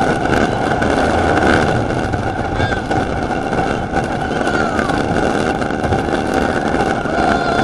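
GCI wooden roller coaster train running at speed along its wooden track: a loud, continuous rumble and rattle.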